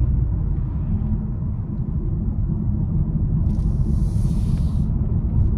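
Road noise inside a moving Volkswagen Arteon: a steady low rumble of tyres and engine. A brief hiss rises over it for about a second and a half midway.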